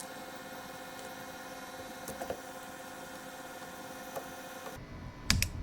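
Steady electrical hum in a workshop, with a few faint clicks. About five seconds in the background changes abruptly and two sharp clicks follow close together, as from small brake-caliper parts being handled on the bench.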